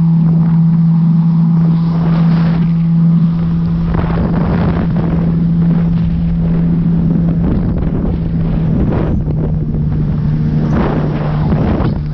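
Jet ski engine running at speed, a loud steady drone that dips slightly in pitch about two-thirds of the way through, with wind buffeting the microphone and rushing water swelling in gusts.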